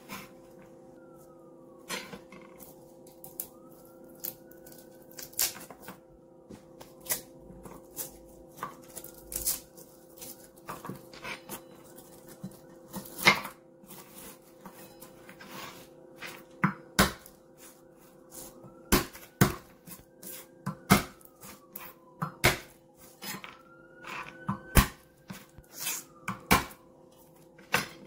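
Irregular sharp knocks and taps of a knife and fingers on a plastic cutting board as garlic cloves are broken apart and peeled, over a steady hum.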